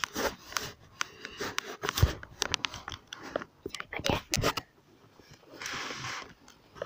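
Handling noise from a handheld recording device being picked up and turned: a quick run of clicks, knocks and rubbing against the microphone, then a short rustling hiss near the end.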